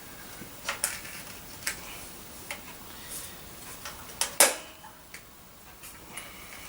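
Scattered clicks and knocks from handling the parts of a 1955 Hoover Junior upright vacuum cleaner, about one every second, the loudest a sharper knock about four and a half seconds in.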